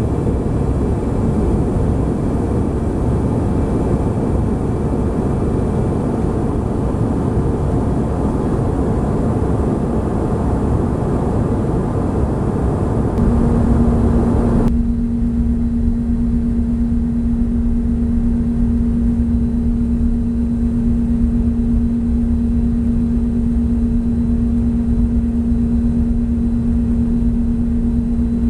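Steady engine and airflow noise inside the cabin of a Bombardier CRJ regional jet in flight. About halfway through, a steady low hum comes in, and moments later the higher hiss drops sharply, leaving a duller rumble with the hum.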